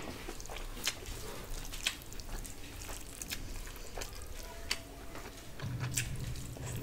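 Fingers squishing and mixing rice with curry gravy on a steel plate: wet squelching with many small sharp clicks. A low steady hum comes in near the end.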